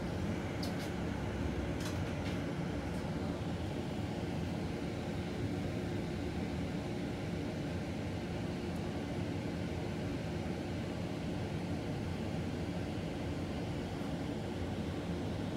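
Steady low rumble inside a moving Zurich tram: wheels running on the rails and the car's running gear, heard from the passenger cabin. A few light clicks in the first three seconds.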